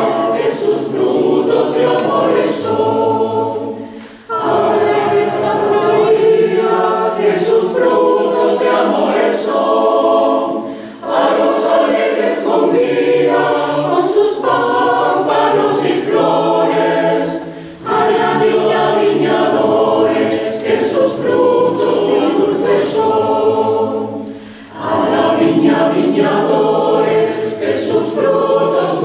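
Mixed choir singing a cappella in four voice parts: long sustained phrases, each broken by a brief pause roughly every seven seconds.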